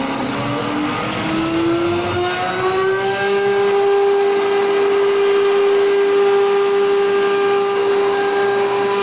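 Electric spindle motors of a multi-head CNC wood router whining as they ramp up to speed, the pitch rising for the first three seconds or so and then holding steady.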